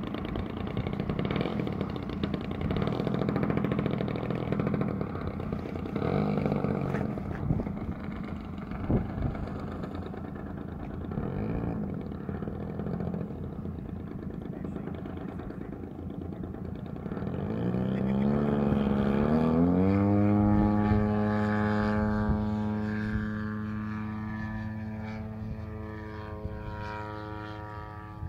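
Radio-controlled aerobatic model airplane's engine and propeller running low and uneven while the plane rolls on the runway. After about 17 seconds the engine revs up with a rising pitch for the takeoff, then holds a steady high drone that slowly fades as the plane climbs away.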